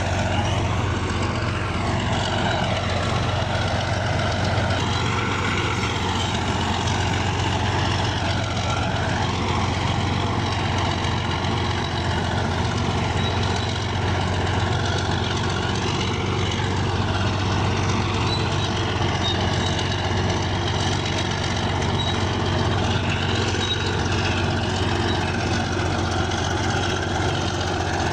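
Bulldozer's diesel engine running steadily, its pitch drifting up and down a little as it works.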